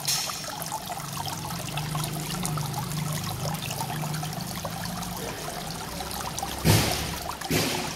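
Water trickling and splashing steadily down a rockery fountain, with a low hum underneath for part of the time. Two brief, loud whooshes break in near the end.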